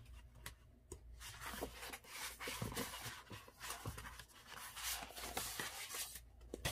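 Hands rummaging through a pile of papers and scrapbooking templates: rustling and sliding, with scattered light taps and clicks.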